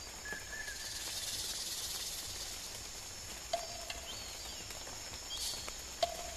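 Natural ambience of insects trilling steadily on high notes, with a hissing buzz that swells about a second in and fades, and a few short animal calls near the middle and end.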